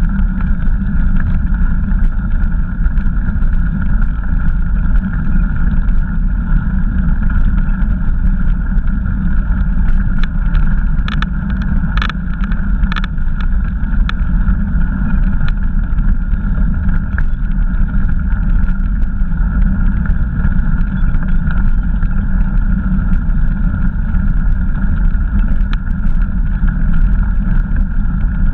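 Steady low rumble of wind and tyre noise picked up by a GoPro Hero riding on a bicycle along a dirt trail, with scattered small clicks and rattles, a few of them bunched together about ten to thirteen seconds in.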